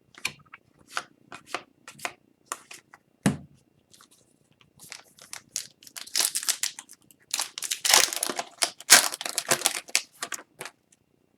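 Trading card packs being torn open and their wrappers crinkled, with cards snapped and flicked through by hand: scattered sharp clicks at first, then longer stretches of tearing and crinkling in the second half.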